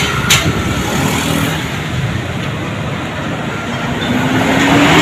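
Road traffic: vehicles passing close by, with one engine rising in pitch as it speeds up and gets louder near the end.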